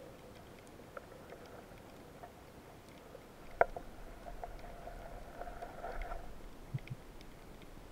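Underwater ambience: faint scattered clicks and crackle, one sharp click about three and a half seconds in, then a faint humming tone for about two seconds, and a couple of soft low thumps near the end.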